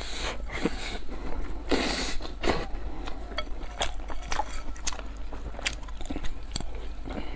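Close-miked eating sounds: wet chewing and slurping of saucy food shovelled from a bowl with chopsticks, with many sharp clicks. There are two longer hissy slurps, one at the start and one about two seconds in.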